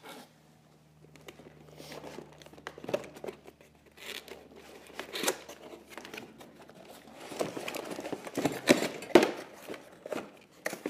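Cardboard packaging being handled: the flaps and inner inserts of an accessories box rustling, scraping and knocking as parts are lifted out, getting busier and louder in the second half.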